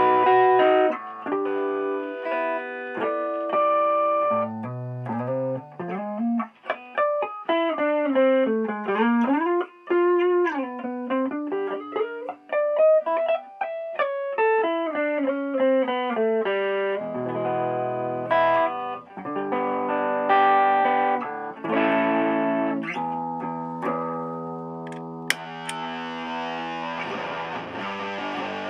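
Electric guitar played through a Keeley Compressor Mini and an Electro-Harmonix Soul Food overdrive: chords, then a fast single-note run with bends, then chords again. Near the end there is a click and the Big Muff Pi Nano fuzz comes in, making the tone thicker and noisier.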